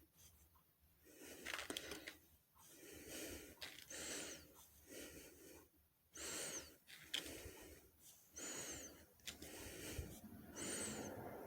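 Quiet breathing close to the microphone, with a faint high whistle through the nose about every two seconds.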